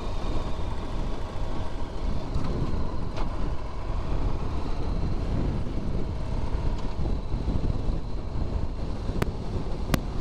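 Wind rushing over a helmet-mounted microphone on a Honda VFR1200X cruising down the road, with the bike's V4 engine running steadily underneath. Two sharp clicks near the end.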